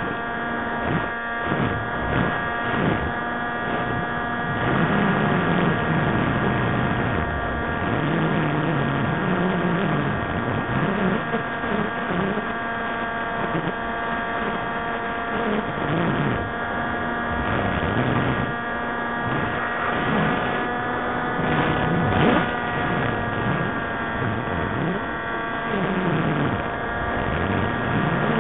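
Steady whine of an RC aircraft's electric motor and propeller with rushing wind noise, heard through the onboard camera's microphone. The whine's pitch lifts slightly about twenty seconds in.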